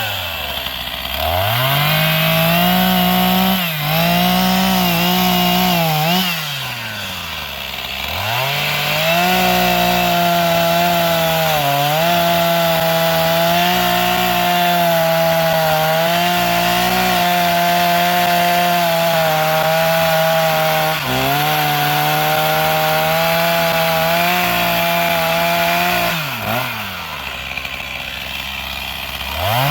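Chainsaw engine revving up and cutting into a pine trunk, dropping back to idle several times between cuts, with a long steady stretch at full throttle from about nine seconds in. The saw is recutting the felling notch on the side the tree is meant to fall.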